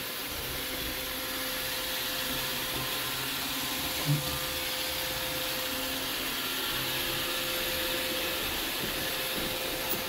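iRobot Roomba 675 robot vacuum running on a bare wood floor: a steady whir of its motors and brushes with a constant hum, and a brief thump about four seconds in.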